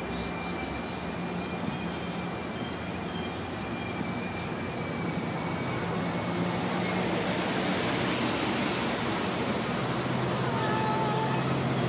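Metrolink commuter train running along the track, heard from inside the passenger car: a steady rumble of wheels and rails with a low hum, growing gradually louder.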